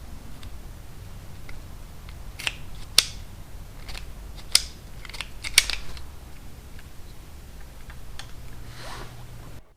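A handful of short, sharp snips and clicks from small hand tools working on motorcycle wiring and heat-shrink tubing, over a low steady hum.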